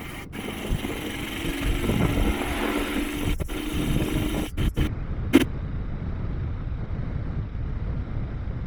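Honda FTR223 motorcycle's single-cylinder engine running while riding, with road and wind noise. The sound is broken by several abrupt edit cuts.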